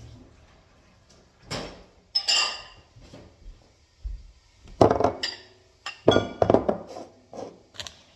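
Kitchen bowls and utensils being handled on a counter, clinking and clattering in a string of separate knocks. The loudest cluster comes about five to seven seconds in.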